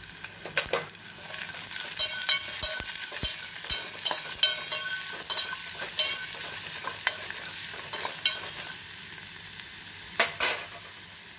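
Chopped vegetables (green peas, carrot, onion) sizzling in hot oil in a stainless steel pot as a steel spoon stirs them, scraping and clinking against the pot, with a couple of louder knocks near the end.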